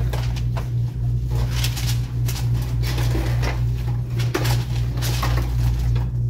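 Repeated crinkling and rustling of a black wrapping sheet being folded by gloved hands around a box of chocolates, over a steady low hum.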